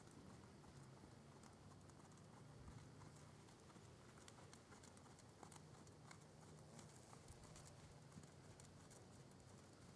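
Faint hoofbeats of a New Forest pony on sand arena footing, soft scattered thuds over a low steady hum.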